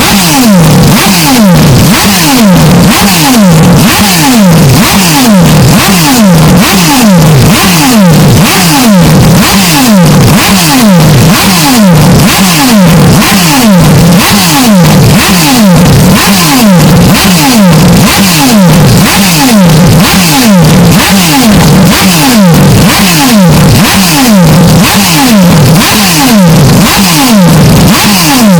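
Porsche 911 RSR racing engine sound, heavily bass-boosted and distorted to the point of clipping. Falling engine-pitch sweeps repeat quickly and evenly, over and over, like a short downshift sample looped.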